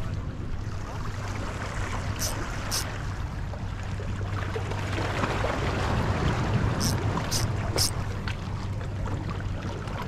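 Seawater washing steadily over a low, constant hum. Five short, high hissing swishes cut through: two about two seconds in and three near the eight-second mark.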